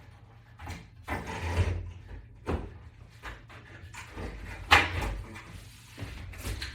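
Wall-mount hardware being handled and fitted into place: a series of knocks and short scrapes, the loudest a sharp knock a little before five seconds in.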